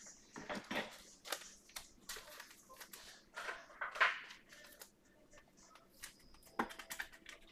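Faint rustling, sliding and clicking of Bowman Chrome trading cards being handled and flipped through one by one, in irregular short strokes.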